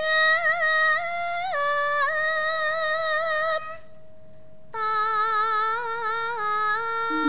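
Female Javanese sindhen singing a solo unaccompanied vocal line in high, ornamented phrases with quick wavering turns, then after a short pause a second phrase of long held notes. A gamelan metallophone note is struck right at the end.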